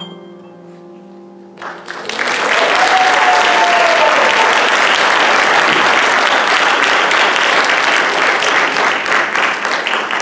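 The last accompanying chord of a song dies away, then an audience breaks into applause just under two seconds in, with one drawn-out cheer rising above the clapping; the applause stays loud and only starts to thin near the end.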